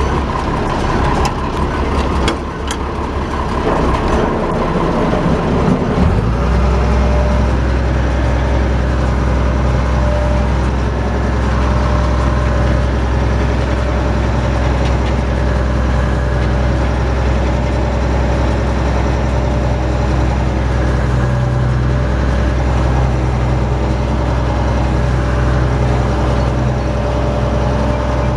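Tractor engine running with a New Holland 650 round baler in tow, with scattered clicks and knocks over the first few seconds. About six seconds in, a steady low drone sets in and holds.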